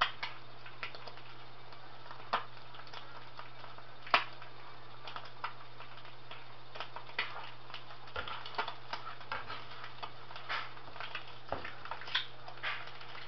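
Egg frying in a pan: scattered, irregular pops and crackles of hot oil, more frequent in the second half, over a steady low hum.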